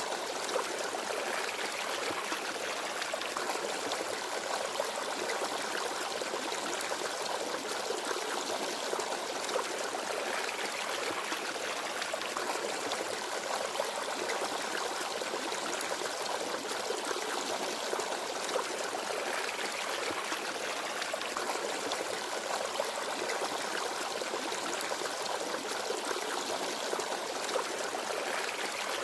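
Small forest stream babbling and trickling steadily over stones, with gentle flowing water and no birdsong.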